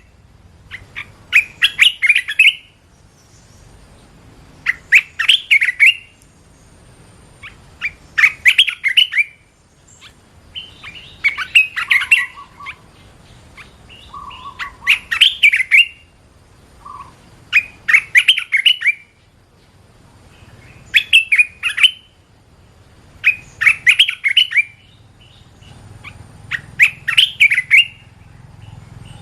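A bulbul singing short, bubbly phrases of quick chirping notes, one about every three seconds, around ten phrases in all. A few lower single notes come between the phrases in the middle.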